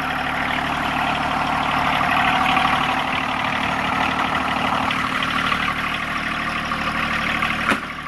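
John Deere 1023E's three-cylinder diesel engine idling steadily just after a cold start, part of its sound dropping away about five seconds in. One sharp click comes near the end.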